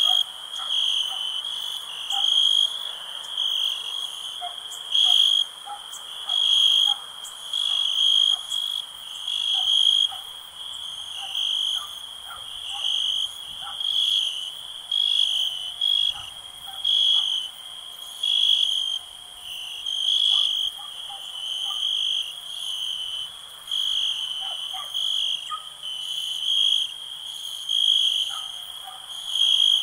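Nighttime chorus of chirping insects: a steady, high chirping with louder pulses recurring about once or twice a second, and fainter, higher trills above it.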